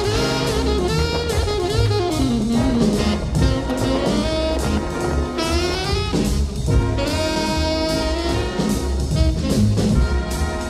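Jazz music with a saxophone carrying a gliding melody over a drum kit.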